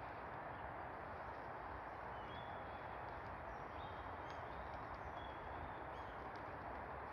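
Steady wind noise outdoors, with a few faint, short, high chirps now and then.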